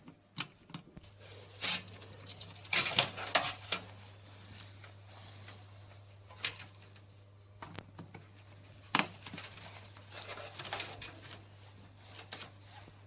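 Hands working on computer parts: scattered sharp clicks and short rustling scrapes of plastic and cables, loudest around a third of the way in and again past the middle. A steady low hum comes in about a second in and stays.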